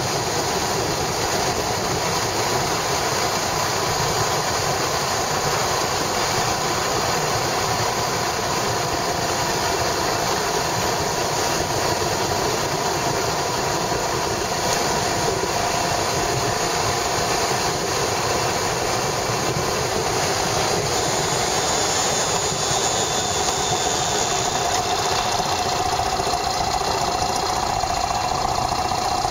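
Yamaha SRX400 motorcycle's air-cooled single-cylinder four-stroke engine running steadily, recorded from a camera mounted on the bike, with a slight shift in pitch late on.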